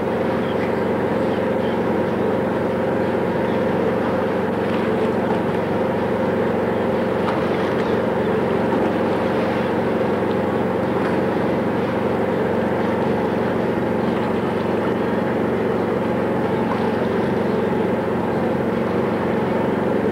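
A boat's engine running steadily, heard on board: a constant low drone with a hum of several steady tones over a wash of noise, unchanging throughout.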